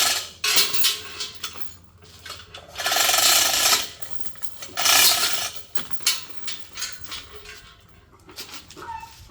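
Metal tools and parts clinking and clattering, with three noisy bursts about a second long and short squeaks near the end.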